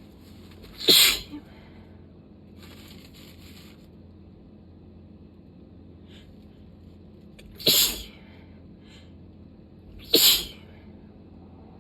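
A person sneezing three times in a sneezing fit: one sneeze about a second in, then two more close together near the end, with quieter breaths between them.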